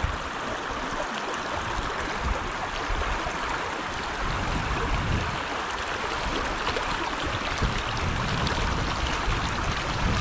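Shallow river rushing steadily over rocks in a riffle.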